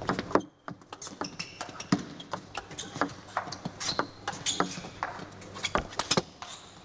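Table tennis rally: the plastic ball clicks off the bats and the table, strike after strike, in an uneven rhythm. It is an attacker's forehand strokes against a defender's returns from well back.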